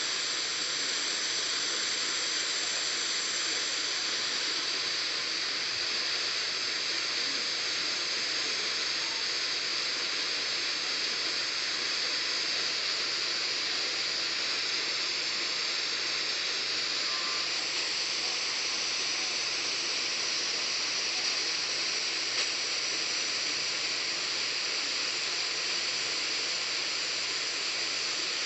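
Radio static: a steady hiss from a radio receiver on a weak, noisy station signal.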